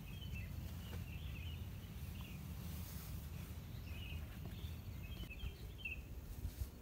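Small birds chirping, short scattered calls coming in little clusters, over a steady low rumble.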